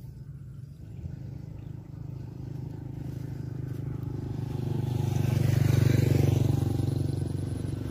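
A motor vehicle engine passing by, its low hum building steadily to its loudest about six seconds in, then easing off.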